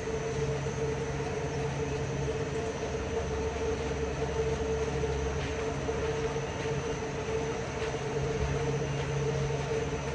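Large dairy-barn ceiling cooling fans running: a steady mechanical hum with a constant mid-pitched whine and a low rumble underneath.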